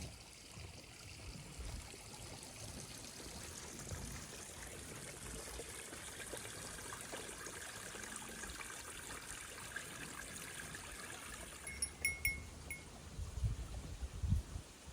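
A small stream of water trickling and flowing steadily. About twelve seconds in come a few short, high bell-like rings, followed by a few low thumps near the end.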